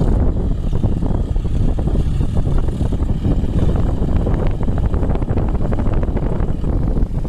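John Deere 5045 tractor's three-cylinder diesel engine running under load as its front dozer blade pushes a pile of soil across the field.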